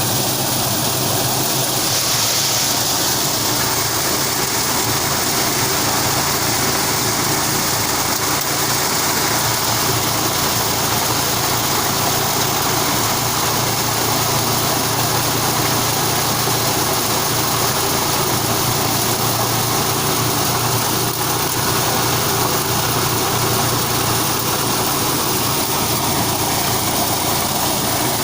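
Engine-driven corn processing machine running steadily, a continuous drone with a loud high hiss.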